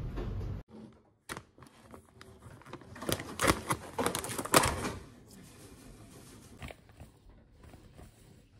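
Background music cuts off under a second in. Then a pouch of pancake mix is opened, giving a run of crinkling and tearing about two seconds long, the loudest sound. Faint rustling follows.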